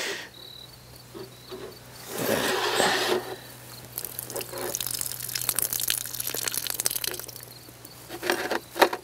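Water poured from one plastic gallon jug into another: a short rush of water about two seconds in, then a run of fine crackling splashes and plastic handling noises, over a low steady hum.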